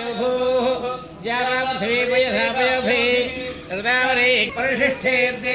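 A man chanting Vedic mantras, the voice held on a near-steady pitch and dipping briefly between phrases.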